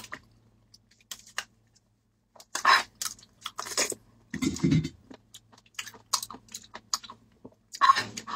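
Eating fruit jelly from a plastic cup: slurping and chewing, mixed with scattered light clicks of a spoon against the cup.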